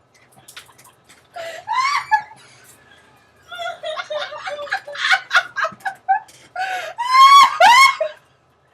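People laughing hard in fits, with a run of quick rhythmic laughs in the middle and loud high-pitched squealing laughter near the end.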